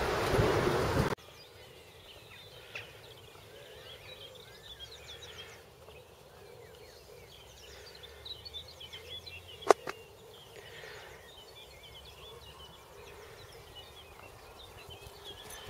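Wind buffeting the microphone for about the first second, then faint birdsong with a single sharp click partway through.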